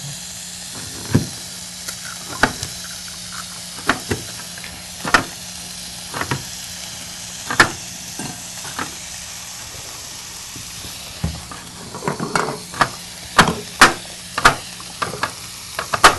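Ground meat and onions sizzling in a frying pan, with sharp taps of a chef's knife chopping green pepper on a plastic cutting board, at first about one a second and coming quicker near the end.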